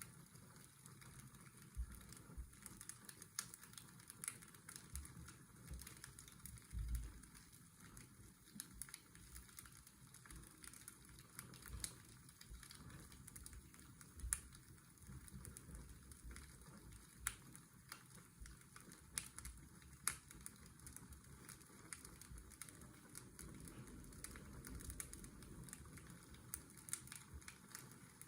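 Fireplace crackling, with irregular sharp pops over a steady low hiss of washing-machine white noise.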